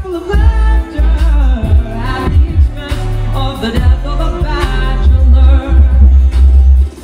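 A young male singer sings into a handheld microphone over amplified backing music with strong bass and a steady drum beat.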